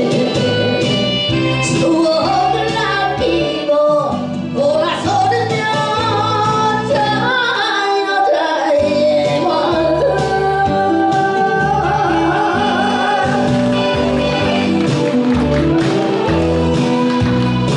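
A woman singing a Korean popular song into a microphone, amplified over backing music with a moving bass line.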